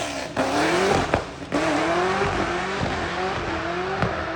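The 2006 Pontiac GTO's Procharger-supercharged LS2 V8 is accelerating hard. Its engine note climbs in pitch, falls back and climbs again, with a couple of sharp cracks about a second in and near the end.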